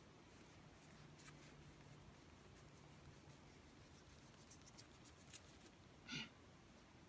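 Near silence: faint scattered ticks and rustles of paper trading cards being handled, with one brief louder sound about six seconds in.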